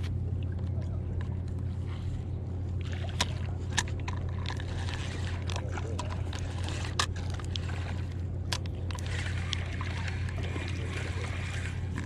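Water sloshing over a steady low hum, with a few sharp clicks.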